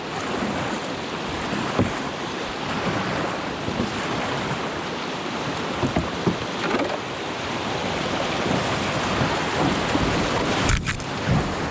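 Steady rush of whitewater rapids around a canoe, with a few short sharp knocks, the strongest near the end.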